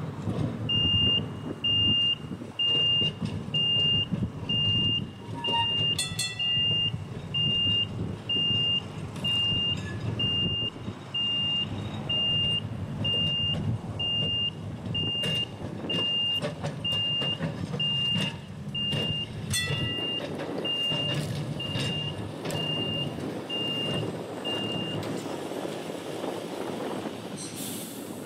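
Electronic warning beeper sounding at one steady pitch, roughly one and a half beeps a second, stopping a few seconds before the end, over the low rumble of a restored Melbourne tram moving slowly along the track, with a few clicks.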